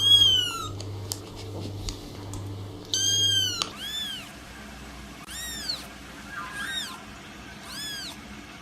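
Kittens meowing: about six short, high-pitched meows, each rising and then falling in pitch, with gaps of about a second between them.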